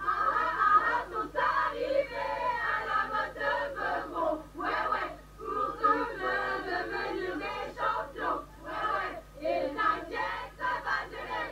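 A crowd of voices chanting and singing together, loud and uneven.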